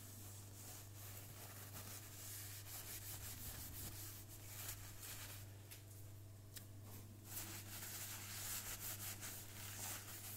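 Damp paper towel rubbed by hand over the top of a Technics SL1210MK2 turntable deck in short strokes, pausing briefly a little past halfway, then starting again.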